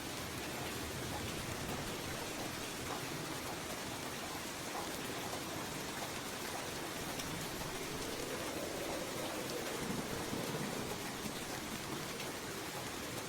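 Steady rain falling in an even hiss, with a soft low swell rising and fading a little past the middle.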